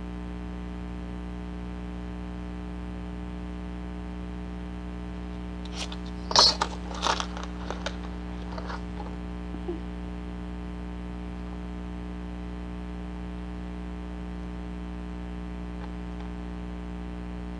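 Steady electrical mains hum throughout. About six to eight seconds in comes a short run of clicks and rustles from paper being handled, the loudest near six and a half seconds, with a few fainter ones trailing off just before ten seconds.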